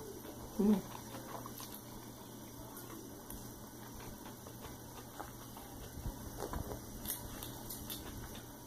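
Wet slurping and chewing of thick black bean noodles (jjajangmyeon) eaten with chopsticks, with a short hum from the eater about a second in. A few light clicks come near the end.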